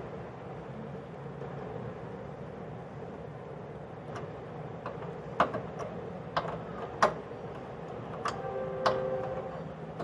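A small spanner clicks and taps on the brass gas jet fittings of a gas stove's burner valves as the jets are tightened. The sharp metal clicks start about four seconds in, the loudest about halfway through, and a short ringing tone follows near the end, all over a steady background hum.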